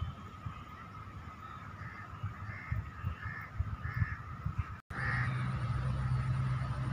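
A bird giving a series of short calls, about one every two-thirds of a second, over a steady thin drone and low wind rumble on the microphone.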